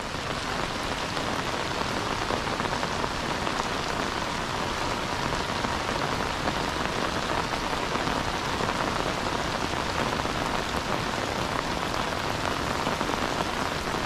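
Heavy rain falling steadily onto a flooded rice paddy, an even, unbroken hiss of drops on water.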